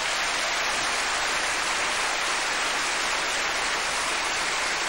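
Studio audience applauding, a dense steady clapping.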